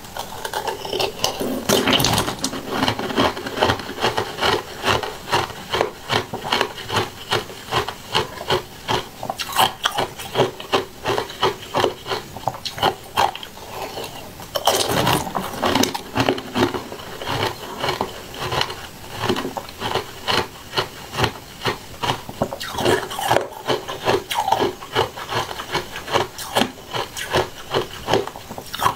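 Close-miked chewing with crisp, rasping crunches, about two to three a second. Louder bites come about two seconds in, again about halfway through, and once more near the end.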